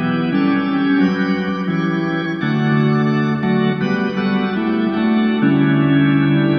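Background organ music: a slow chorale of sustained chords, changing about once a second.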